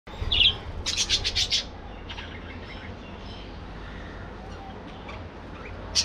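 Budgerigars chirping: a short call, then a quick run of about six loud chirps around one second in, followed by softer scattered chirps over a low steady rumble.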